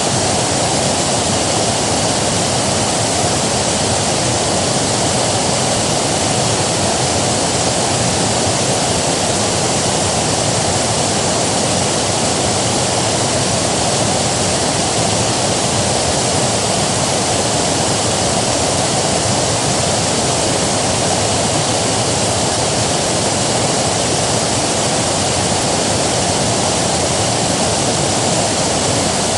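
River water rushing steadily, a dense, even rush with no changes.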